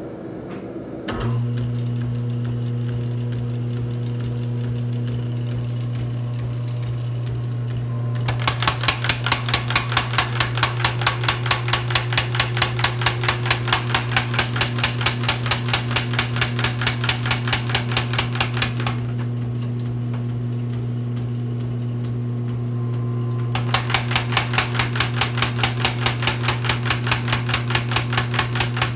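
A 25-pound Little Giant power hammer. Its overhead electric motor starts about a second in and runs with a steady hum. After about eight seconds the hammer begins striking hot 1-inch mild steel square stock in a fast, even run of about four blows a second. It stops for about four seconds, then resumes near the end.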